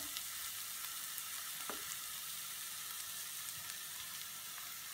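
Onion-and-tomato masala frying in a nonstick pan, a steady high sizzle, with spice powders cooking until their raw smell goes. A light tap sounds about one and a half seconds in.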